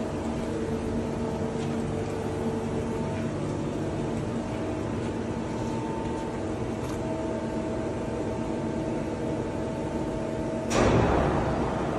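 Steady machinery hum holding several steady tones. About eleven seconds in, a sudden louder rushing noise cuts in and keeps going.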